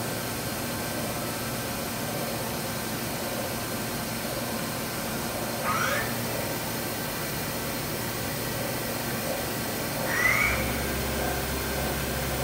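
Mighty Viper PRO-4210 bridge mill running with a steady hum. Two short rising squeals come a few seconds apart, and a deeper hum joins near the end.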